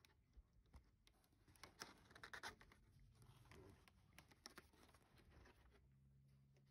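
Near silence with faint rustling and soft clicks of handling, a small cluster of them about two seconds in, and a faint low hum setting in near the end.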